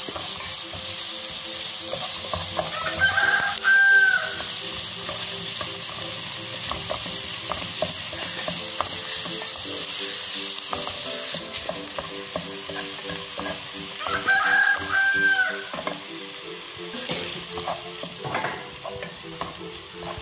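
A spatula stirs and scrapes onion, chilli and garlic masala sautéing in a non-stick pan, with a steady frying sizzle and scattered scraping ticks. Twice, about eleven seconds apart, a short arching animal call rises above it.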